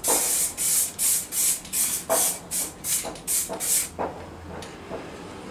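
Aerosol can of guide coat spraying in short, quick hisses, about three a second, dusting a light mist over a primed panel. The spraying stops about four seconds in.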